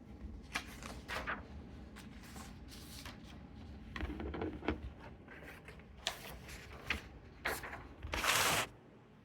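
A string of short rustles and scrapes, like paper or cloth being handled close to the microphone, over a low room rumble, with the longest and loudest rustle near the end.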